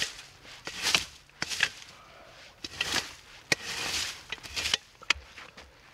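Irregular swishing and scraping strokes with small knocks and clicks, about one stroke a second, as debris is swept out of a sleeping spot.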